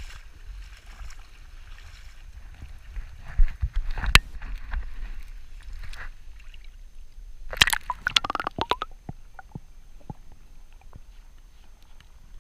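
Stream water sloshing and splashing around a camera in its waterproof housing as it is dipped from the surface to below it. There are a few sharp knocks about three to four seconds in and a burst of splashing around eight seconds, then only scattered small ticks.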